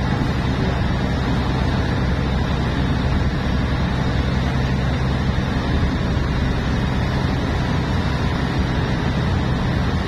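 A large ship's engine running with a steady deep hum, over the rushing water of the propeller wake.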